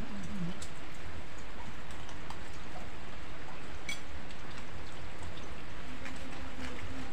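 Steady rain falling, an even hiss with no let-up, with a few light clicks on top.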